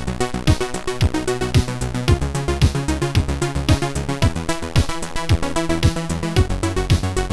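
Background music: fast electronic track with a steady, quick beat and synthesizer lines.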